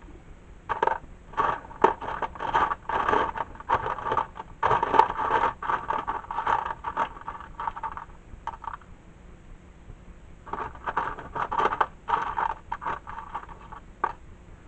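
Scraping and clattering of small hard parts being rummaged through and handled by hand, in two busy spells with a quieter gap about two thirds of the way in, typical of searching a box of electronic components for a small switch.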